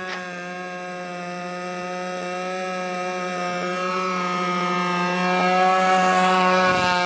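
RC speedboat's engine running flat out at a steady high pitch, growing louder as the boat comes close.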